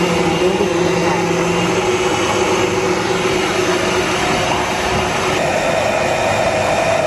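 Breville Power Mixer stand mixer running steadily, its beaters churning thick churro dough as an egg is beaten in.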